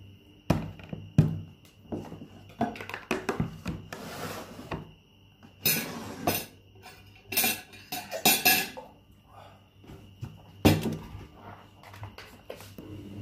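Tableware being handled: plates, a plastic food container and cutlery knocking and clinking as they are set down on a table, with several short scrapes.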